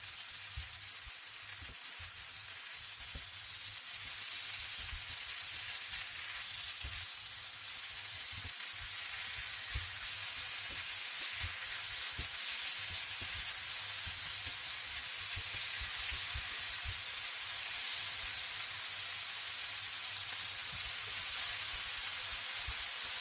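Chopped green pepper, onion and spinach sizzling in hot oil in a frying pan over a high gas flame, the sizzle growing steadily louder as the pan heats up.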